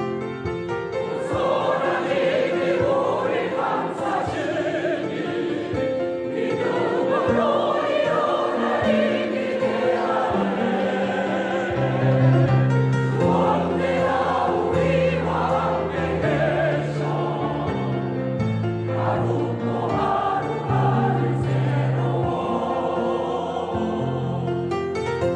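Church choir singing a gospel hymn in several parts, over sustained low instrumental accompaniment.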